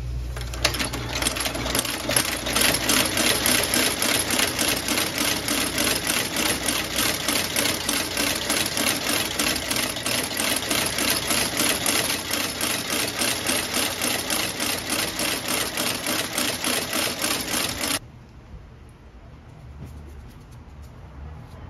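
Landis L sole stitcher running, its needle and awl cycling in a rapid steady rhythm over a motor whine as it stitches a leather midsole onto a boot's welt. It stops suddenly about three seconds before the end.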